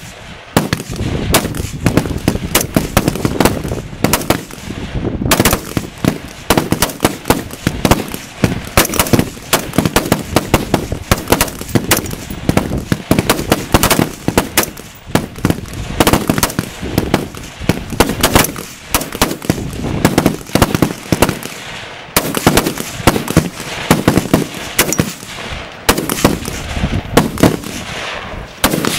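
Rapid-fire rifle shooting along a whole firing line of AR-15 service rifles: many shots cracking out irregularly and overlapping, often several in a second, with no pause.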